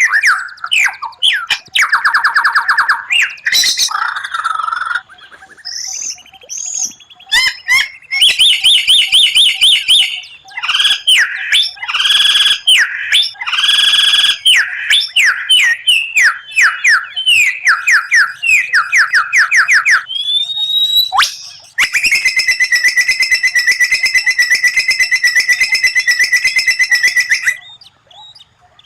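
White-rumped shama (murai batu) singing loudly in varied phrases of fast repeated whistled notes and trills, a 'tembakan' rapid-fire song. Near the end comes a long, even rattle that lasts about five seconds.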